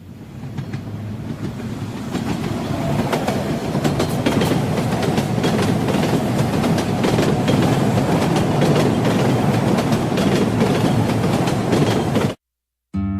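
Train running on rails, wheels clacking over the rail joints. It grows louder over the first few seconds, holds steady, then cuts off abruptly near the end.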